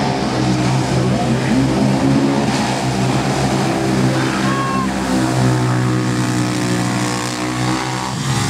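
Two Arctic Cat Wildcat side-by-sides racing flat out through a mud pit, their engines running hard at high, steady revs.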